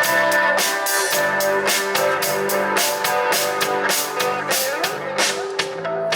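Live rock band playing an instrumental passage: a steady drum-kit beat with cymbal hits over held guitar and bass notes.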